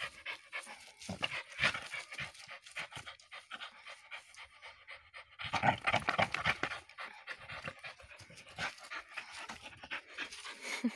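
Dog panting hard and fast while gripping and tugging a toy hung on a rubber bungee from a tree. It gets louder for a second or so just past the middle.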